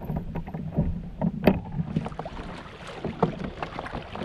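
Irregular knocks and clicks of gear and hull on a plastic fishing kayak, with one sharp click about a second and a half in, over a steady low wind noise.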